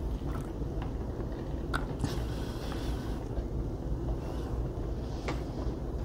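Steady low rumble with a faint low hum underneath, and a couple of faint light clicks.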